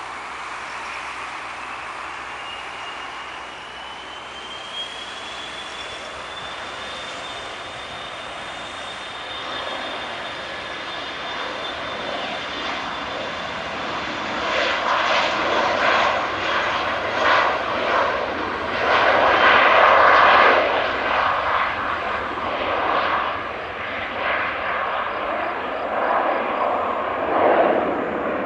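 Dassault Falcon 2000 business jet's twin turbofan engines spooling up to takeoff power: a whine rises in pitch over the first several seconds. About halfway in, the engine noise grows louder and rough, surging unevenly as the jet runs down the runway and lifts off, loudest a little past two-thirds of the way through.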